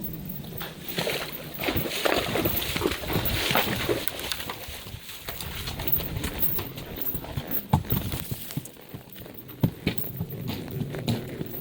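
A horse wading across a creek, hooves splashing and sloshing through the water, with a few sharp knocks as the hooves strike.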